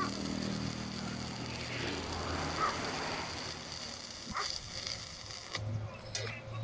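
Stick (arc) welding on a steel truck axle housing: the electrode arc burns with a steady crackle and stops about four seconds in. A low steady hum runs underneath.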